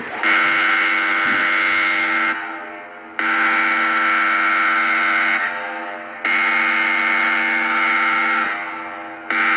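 A loud horn sounding a steady chord in long blasts, each about two seconds, with a gap of under a second between them. Each blast cuts off sharply and leaves a fading echo, and a fourth blast begins near the end.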